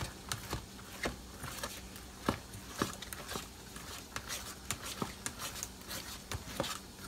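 A spoon stirring thick brownie batter in a plastic tub: irregular clicks, knocks and scrapes as the spoon works through the batter and hits the tub, over a faint steady hum.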